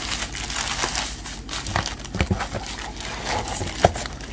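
Bubble wrap and a plastic bag crinkling and rustling as a laptop keyboard is pulled out of them by hand. Many small crackles run through it, with one sharper click near the end.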